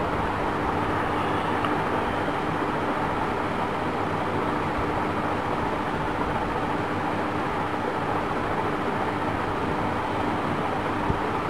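Steady, even background noise with a faint steady hum underneath and no distinct events.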